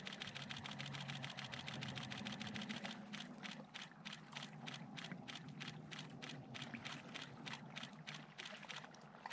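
A Canon 5D Mark IV DSLR's shutter firing in a long continuous burst for a handheld focus stack, rapid at first and slowing a little about three seconds in. A low steady hum runs underneath.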